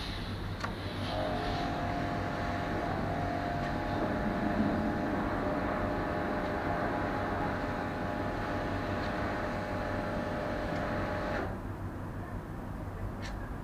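A machine or engine running steadily nearby, a low hum with a held tone, cuts off suddenly about eleven seconds in and leaves a fainter background hum.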